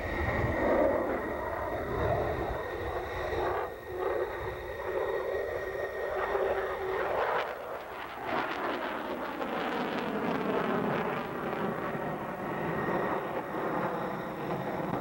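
Jet roar from a Sukhoi Su-37 fighter's twin afterburning turbofan engines as it manoeuvres overhead. About eight seconds in, the deep rumble drops away and the roar turns to a wavering rush.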